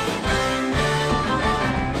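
Live band playing an up-tempo song with drum kit, electric bass, guitar, keyboard and trombone.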